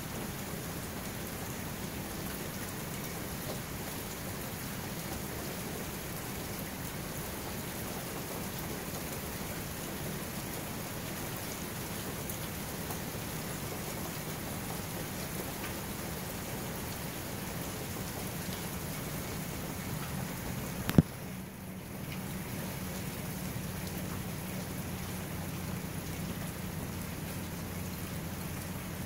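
Steady rain falling, an even hiss with no rhythm. A single sharp click about three-quarters of the way through.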